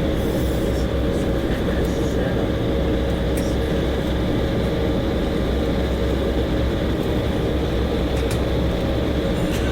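Steady cabin noise inside an Embraer 190 taxiing at idle power on its twin turbofans: a constant low rumble with a steady hum-like tone above it.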